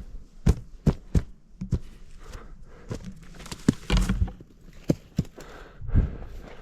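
Footsteps crunching through snow, with uneven thumps about twice a second.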